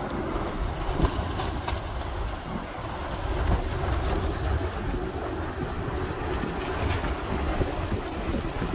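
Lava fountain of the Litlihrútur fissure eruption erupting from its crater: a steady deep rumbling noise, like a machine or a train, with a few faint cracks of falling lava chunks.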